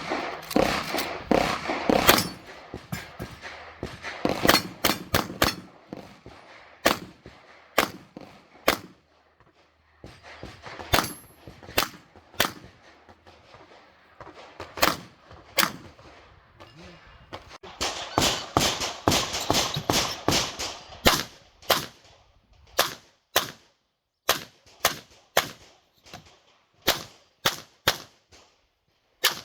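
Handgun fired in rapid strings during a practical-shooting stage: dozens of sharp shots, often several a second, broken by short pauses between strings.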